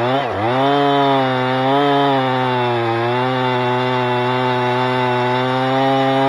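Two-stroke Husqvarna chainsaw with a 24-inch bar held at full throttle while cutting through a large red oak log. The engine pitch dips briefly near the start as the chain bites, then holds nearly steady with slight wavers under load.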